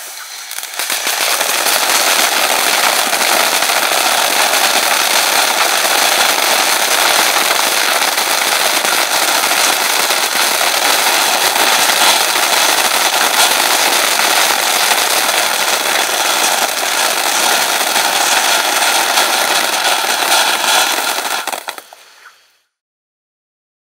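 Fox Fireworks 'Gang of Four' ground fountains burning: a loud, continuous hiss of spraying sparks with dense crackling. It builds over the first second, holds steady, and dies away about 22 seconds in as the fountains burn out.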